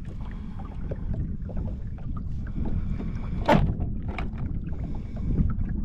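Wind buffeting the microphone and water lapping against the hull of a Sea-Doo FishPro personal watercraft, with one sharp hit about three and a half seconds in.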